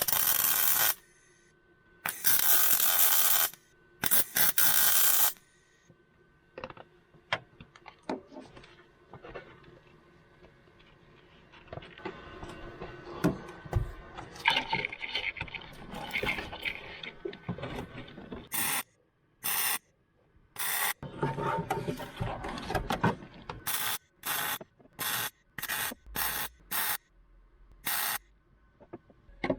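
Welder on car-body sheet steel: three welding runs of about a second each in the first five seconds, then scattered clicks and scraping, then a quick series of short tack or stitch welds, each under half a second.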